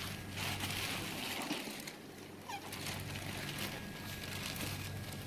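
Wet fish and plastic sheeting being handled in a cooler box, rustling and shifting in irregular spells, over a steady low hum.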